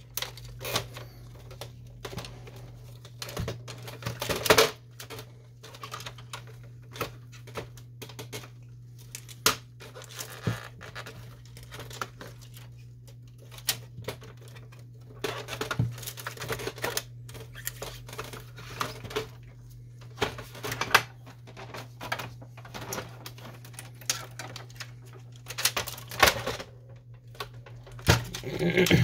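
Plastic printer housing parts and cables being handled: irregular clicks, taps and rattles of hard plastic, a few louder knocks about four seconds in and again near the end, over a steady low hum.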